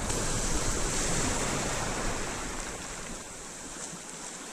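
Small sea waves washing in over and around shoreline rocks, a steady hiss of surf that eases a little toward the end, with some low wind rumble on the microphone that dies away a little past three seconds in.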